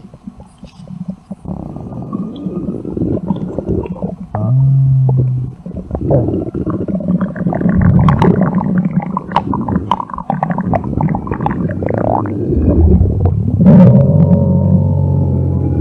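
Stomach growling: a continuous run of low rumbles and bubbly gurgles, with a longer low pitched groan about four seconds in and another near the end.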